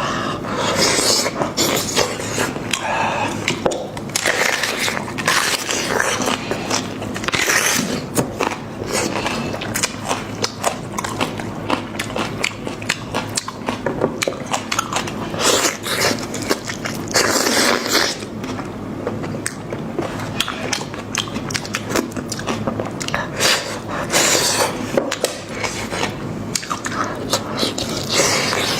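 Close-miked chewing and biting as a person eats spiced meat from a cooked sheep or goat head, with many short wet clicks and crunches throughout.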